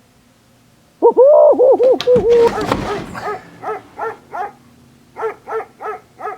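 Goofy's cartoon voice: a wavering, yodelling holler, a crash about two seconds in, then a run of short "hyuck" chuckles at about three a second.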